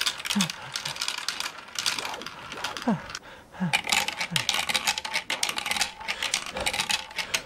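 Marbles rolling and clattering through a plastic marble run, a rapid, irregular stream of small clicks and rattles.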